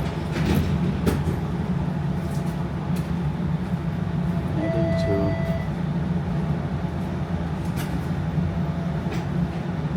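Toronto streetcar running along its tracks: a steady low rumble, with a few sharp clicks and rattles scattered through it.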